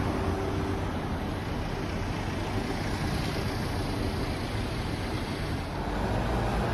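Street traffic noise with city buses and trolleybuses driving past: an even rushing sound, with a faint steady hum in the first second. It turns deeper and a little louder about six seconds in.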